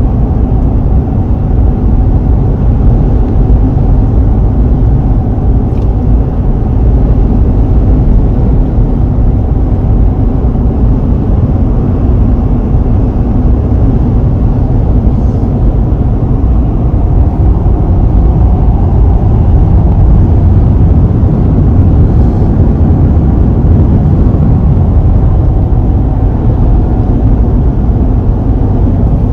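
Steady low rumble of road, tyre and engine noise inside a vehicle cruising at highway speed, heard from within the cabin.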